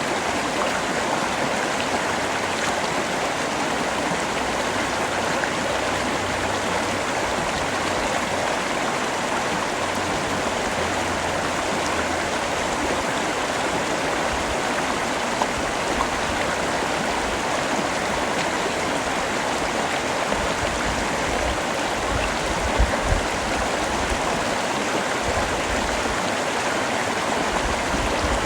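Steady heavy rain falling, a continuous even hiss of water. A couple of brief low thuds come about three-quarters of the way through.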